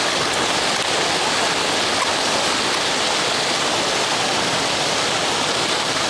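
Water fountain splashing, a steady, even rushing of falling water.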